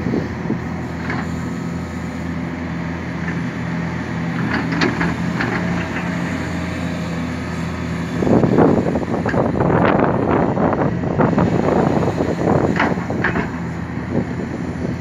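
A large Hitachi hydraulic excavator's diesel engine runs at a steady hum with a few scattered knocks. About halfway through, a louder rough clattering, crunching noise with repeated knocks joins it and continues.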